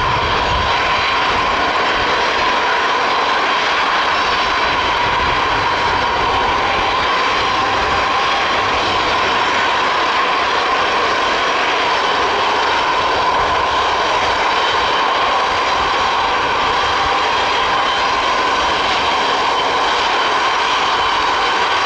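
Antonov An-225 Mriya's six turbofan jet engines running at taxi power as the aircraft rolls toward the runway: a steady, unchanging whine with a low rumble beneath.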